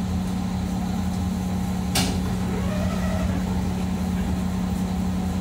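Steady electrical hum of a SkyTrain car standing at a station, with one sharp click about two seconds in.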